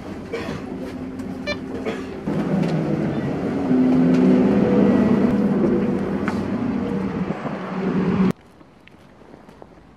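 Inside a city bus: the engine drones with a steady pitched hum that grows louder about halfway through, as the bus pulls away. There is a short beep about a second and a half in. Near the end it cuts off suddenly to much quieter outdoor sound with faint ticks.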